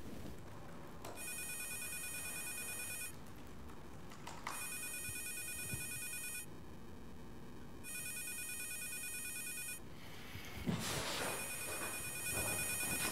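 Office desk telephone ringing with an electronic trill, three rings of about two seconds each with short gaps. Footsteps and shuffling follow near the end as someone goes to answer it.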